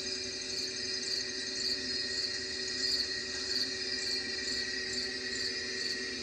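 Crickets chirping steadily and densely, with a low steady hum underneath.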